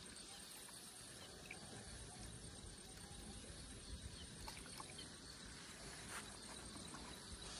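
Quiet outdoor ambience: a faint, high insect trill in short even pulses over a low rumble, with a few faint ticks.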